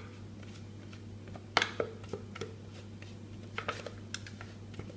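Plastic spatula scraping and knocking against the inside of a stainless-steel Thermomix mixing bowl as cake batter is scraped out into a pan. There are a few sharp knocks, the loudest about one and a half seconds in and a couple more near four seconds, with small clicks between.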